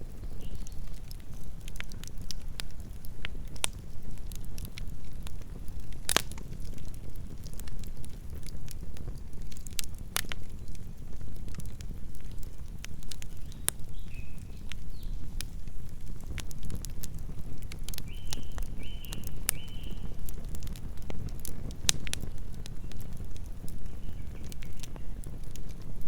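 Campfire burning: a steady low rumble of the flames with scattered sharp crackles and pops from the burning wood, the loudest pops about six and ten seconds in.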